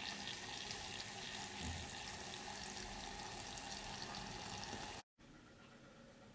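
A donut deep-frying in hot oil in a small stainless steel saucepan: a steady sizzle of bubbling oil. It cuts off abruptly about five seconds in, leaving only faint room tone.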